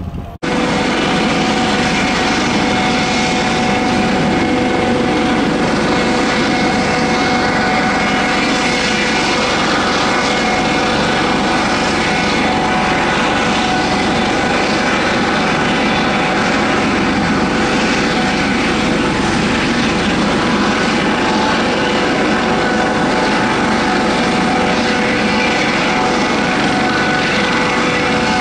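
Single-engine propeller plane's engine running at a steady drone, with a few fixed whining tones over it. The sound cuts in abruptly just after the start and holds at one level.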